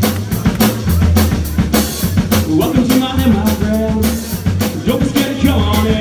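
Live rock band playing: a drum kit keeping a steady beat under electric guitars, with a voice singing.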